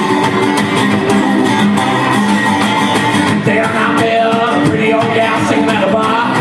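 Acoustic guitar strummed steadily in a blues song, with a man singing along from about halfway through.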